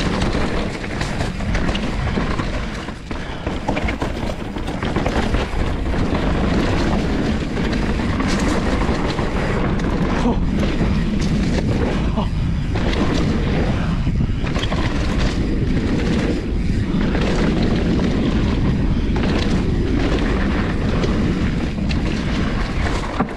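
Mountain bike descending a dirt and rock trail at speed: tyres running over dirt and rock and the bike rattling with many sharp knocks over the bumps, under a heavy wind rumble on the mounted camera's microphone.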